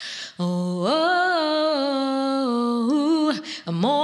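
A woman singing a cappella gospel, holding long wordless notes on one voice. The pitch slides up about a second in and holds, then breaks briefly before the next note near the end.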